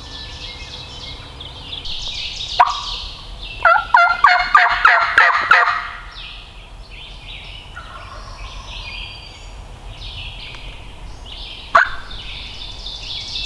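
Eastern wild turkey gobbler gobbling once about four seconds in, a rapid rattling run of notes lasting about two seconds. Two short, sharp sounds come just before the gobble and again near the end.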